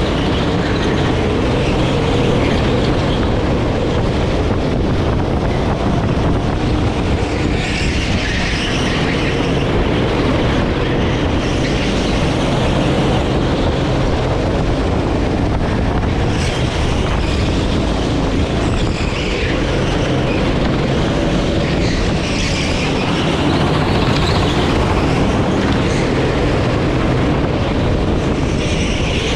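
Sodi rental kart's engine running continuously at speed around an indoor track, heard from on board. A higher hiss swells and fades about every seven seconds.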